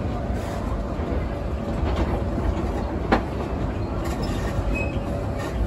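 Theme-park train rolling along the track: a steady low rumble with small wheel clicks, and one sharp click about three seconds in.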